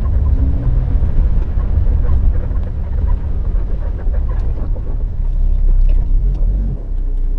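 A 1974 Plymouth Valiant driving, heard from inside the cabin: its slant-six engine running under a steady low rumble of engine and road noise.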